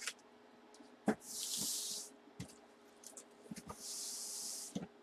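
Cardboard box being opened by hand: two scraping, hissing strokes of about a second each, one early and one near the end, with a few light knocks of cardboard and paper being handled.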